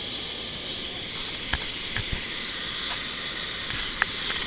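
Helicopter turbine and rotor running steadily at ground idle: an even whine and rush. A few sharp knocks from fingers handling the camera come about halfway through and near the end.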